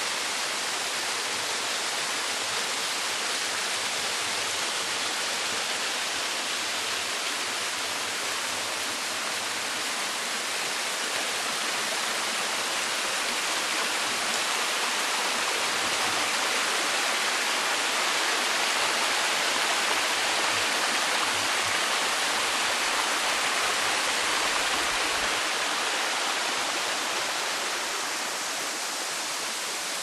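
Small waterfall splashing down over rock: a steady, even rush of falling water that grows a little louder in the middle and eases off near the end.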